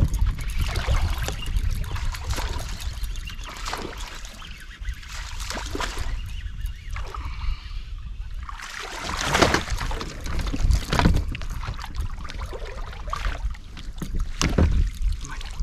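Wind rumbling on the microphone and water splashing as a hooked black bass is played and brought to the boat. The loudest splashing comes a little past halfway through.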